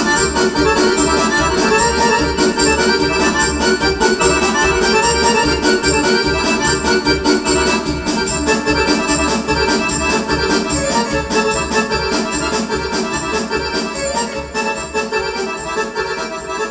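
Korg electronic keyboard played live: an organ-like lead melody over a steady low beat.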